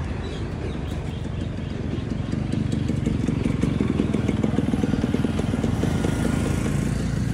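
Motorcycle engine running as it rides past, growing louder about halfway through.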